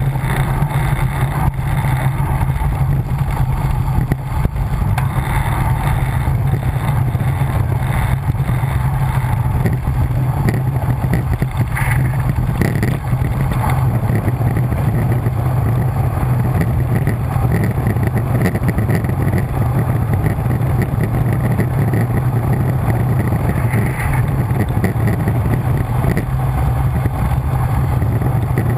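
Steady wind rush buffeting the microphone of a camera carried on a road bike descending at speed, a loud low rumble that never lets up.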